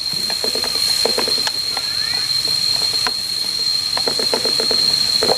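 Tomatoes sizzling as they are stir-fried in a pan, with two bursts of quick clicks and clatter from the spatula against the pan, over a steady high-pitched whine.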